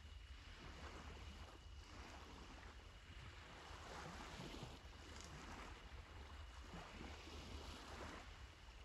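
Faint sea waves washing on the shore in slow, soft swells.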